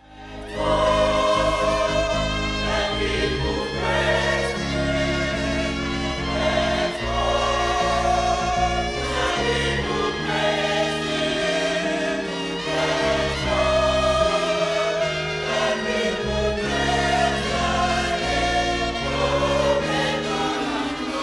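Gospel choir singing over instrumental backing with bass and sustained chords.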